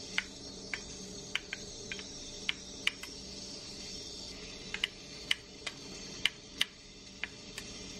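Doenjang jjigae boiling in an earthenware pot: a steady low hiss with irregular sharp pops and clicks of bubbles bursting, about two a second.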